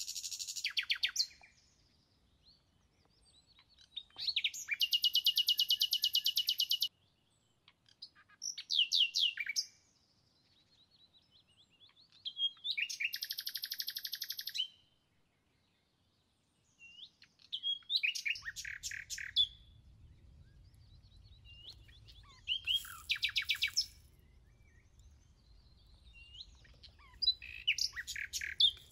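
A songbird singing in fast, high trilled phrases of one to three seconds each, about seven of them, with pauses between.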